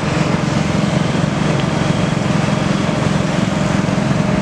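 Komatsu PC200 excavator's diesel engine running steadily with an even, low drone.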